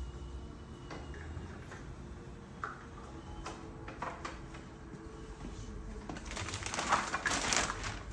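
Plastic slat shoes clicking and knocking as they are fitted onto the ends of wooden bed slats and pushed into the holes in the side rail. Scattered single clicks at first, turning into a busy run of clicking and clattering about six seconds in.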